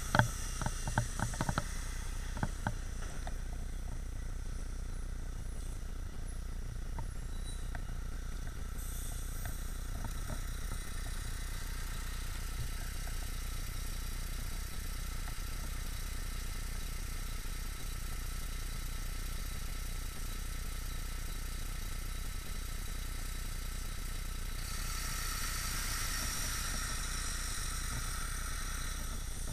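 Street traffic noise with a double-decker bus's engine running close ahead: a steady low rumble throughout. A few sharp clicks and rattles come in the first three seconds, and a brighter hiss rises near the end.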